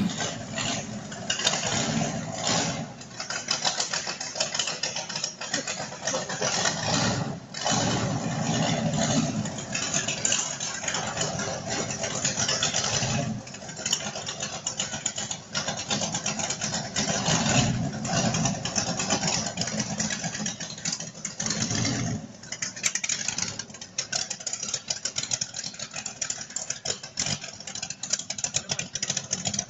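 Boss Hoss V8 motorcycle engine being started and run, a rough mechanical sound that surges and drops several times with short lulls in between.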